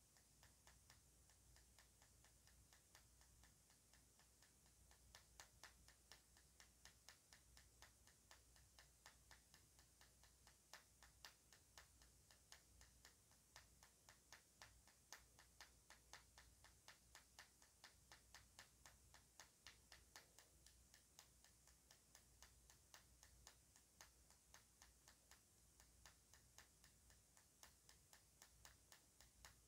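A wooden pencil tapping steadily on the plastic barrel of a Sharpie highlighter: faint, light ticks a few times a second, growing clearer about five seconds in.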